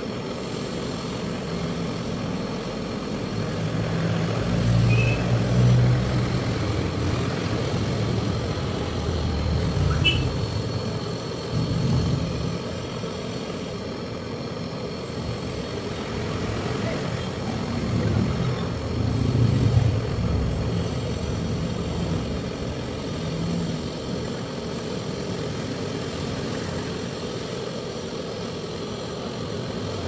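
Handheld gas-canister torch flame burning steadily while brazing copper refrigeration pipe at a fridge compressor, a constant hiss with a low rumble that swells a few times.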